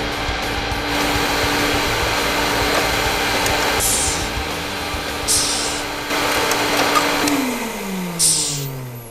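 Vacuum cleaner running steadily, then switched off about seven seconds in, its motor winding down in falling pitch.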